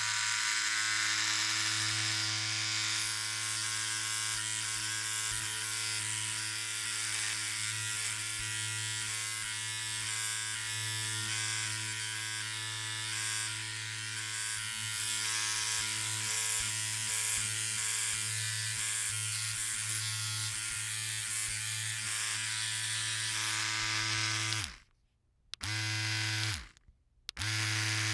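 Philips OneBlade electric shaver running with a steady motor hum. Near the end it stops, runs again for about a second, stops, and starts up once more.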